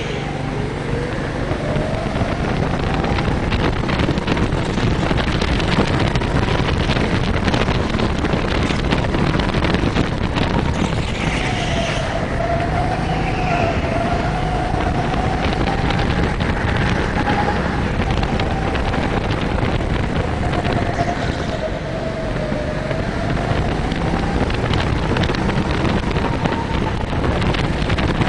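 Go-kart motor running hard, its note wavering up and down, mixed with wind noise on the head-mounted camera's microphone.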